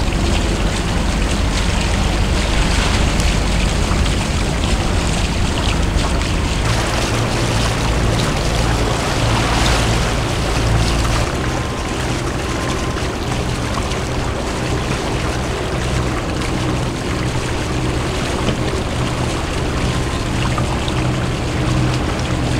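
Motorboat engine running steadily under way, mixed with wind and water noise over the microphone; its low hum shifts about 7 and 11 seconds in.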